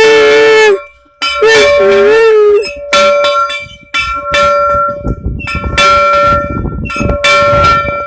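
Two blasts of a locomotive whistle, one at the start and one from about 1.5 to 2.5 seconds, each a steady pitch. Then, from about 3 seconds in, a locomotive bell is rung repeatedly, its strikes ringing on and overlapping.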